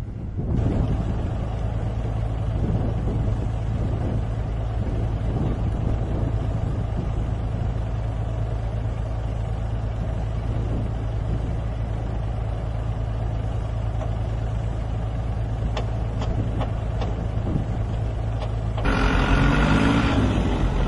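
A heavy vehicle or machine engine running steadily, with a few sharp clicks, then louder and changing in tone near the end.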